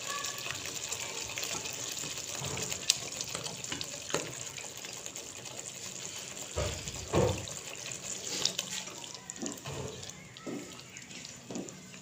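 Tomato chutney simmering in a wok with a steady bubbling hiss as its remaining water cooks off. A spatula stirs and knocks against the pan, loudest about six to seven seconds in.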